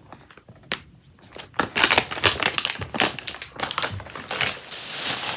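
Snack packaging crinkling as it is handled, starting after a quiet first second and a half and running as dense crackling, continuous near the end.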